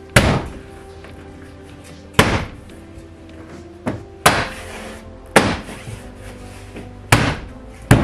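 Plastic interior door trim panel of a Chrysler PT Cruiser being struck by hand to snap its retaining clips back into the door: about six sharp thumps at uneven intervals, with a lighter knock just before the middle one. Background music plays throughout.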